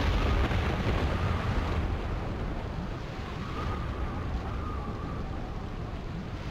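Storm sound effect: a loud low rumble in the first two seconds, like thunder, settling into a steady rushing noise of wind and rain with a faint wavering whistle.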